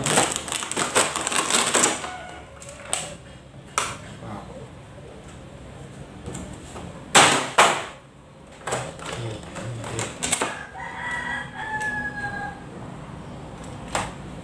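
Clear plastic packaging crinkling and rustling while a 1/12 RC rock crawler is unwrapped and lifted from its box, with a few sharp knocks of handling. Near the end a rooster crows in the background.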